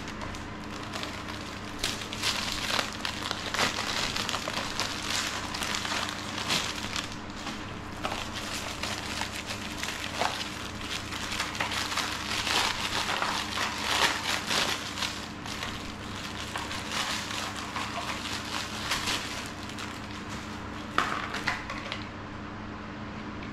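Clear plastic bag crinkling and crackling as hands handle a packaged item and pull it out of its wrapping, in irregular rustling bursts. A sharper crackle comes near the end, and then the rustling stops.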